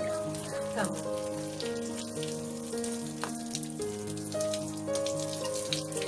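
Soft background music with sustained notes, over water trickling from a chrome bath mixer tap as it is wiped by hand, with many small splashes and ticks.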